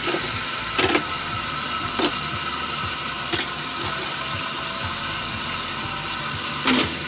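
Kitchen tap running steadily into the sink, with a few light knocks, shut off near the end.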